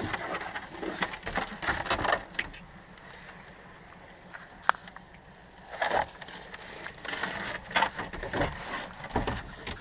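Irregular scraping, rustling and knocking from handling on a small boat's deck, in clusters, with one sharp click about halfway through.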